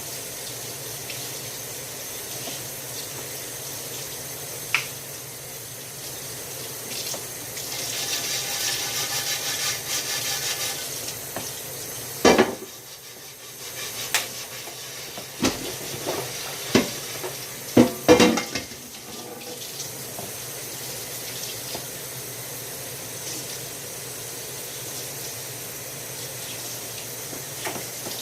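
Water running from a kitchen tap into a sink, louder for a few seconds partway through, with dishes knocking together several times around the middle.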